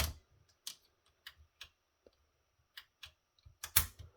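Irregular sharp clicks and taps of hard objects being handled, about eight strikes with gaps between, the loudest at the very start and a double click near the end.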